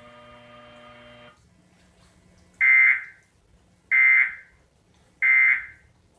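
Emergency Alert System end-of-message signal: three short bursts of the digital data tones, a little over a second apart. They mark the end of the alert message.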